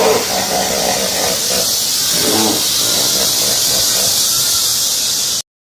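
Hippopotamus calls, pitched and repeated, over a steady hiss. The sound cuts off abruptly about five seconds in.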